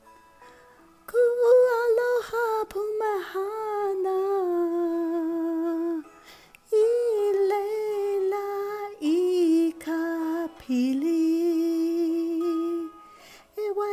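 A woman humming a wordless melody, unaccompanied, in long held notes with a slight waver. The melody comes in several phrases with short breaks between them.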